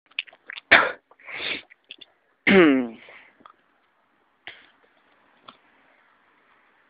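A person's short nonverbal vocal noises: a few sharp breathy bursts and sniff-like sounds, then a brief voiced sound falling in pitch, followed by two faint clicks.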